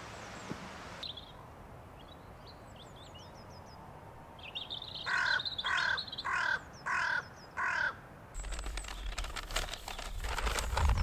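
A crow cawing five times in a steady series, with a few faint small-bird chirps just before. Near the end, wind rumbles on the microphone with rustling.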